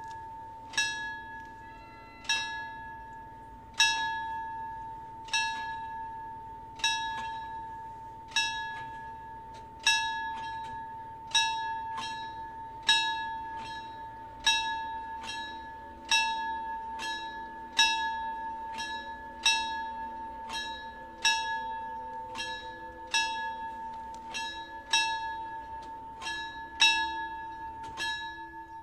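Railway level-crossing warning bell striking steadily, about once every one and a half seconds, each stroke ringing on into the next: the crossing is closing ahead of an approaching train.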